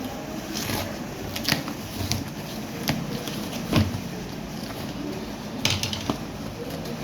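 Packaging and a small handheld device being handled: intermittent rustles, clicks and light knocks over a steady low hum.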